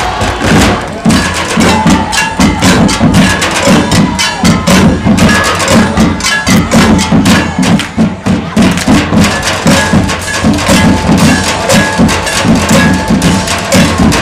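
Marching band playing, carried by its drumline: a dense run of rapid, rhythmic drum strokes with deep pulsing hits, and a few held tones above them in the second half.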